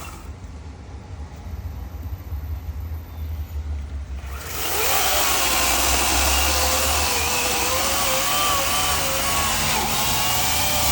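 Low rumble, then about four seconds in a gasoline chainsaw starts running loudly and keeps going, its pitch wavering up and down.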